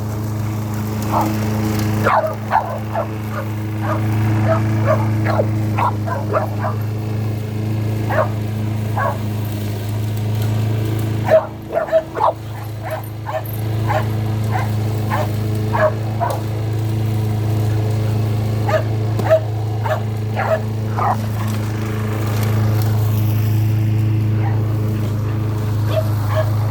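Dog barking and yipping in quick, irregular bursts over the steady drone of a running lawnmower engine.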